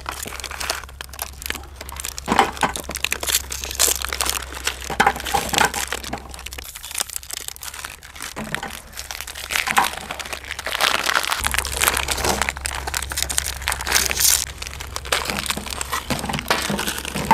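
Plastic Oreo biscuit wrappers crinkling as the packets are torn open and handled, with irregular crackles and sharp cracks throughout.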